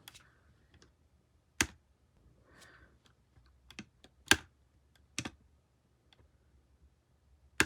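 A few sharp, scattered clicks and taps of hard plastic and the soldering iron being handled, with a faint short hiss of the hot iron tip sizzling about two and a half seconds in.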